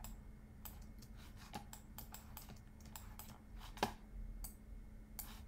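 Computer keyboard and mouse clicks at an irregular pace while working at a computer, with one louder click nearly four seconds in, over a faint steady hum.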